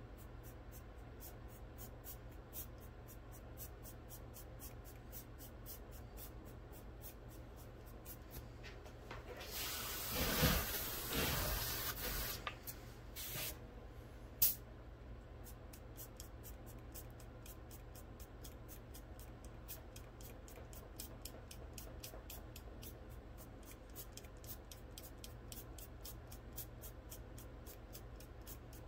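Airbrush spraying: one hissing burst of air and paint about ten seconds in, lasting about three seconds, then two short spurts. A low steady hum and faint regular ticking run underneath.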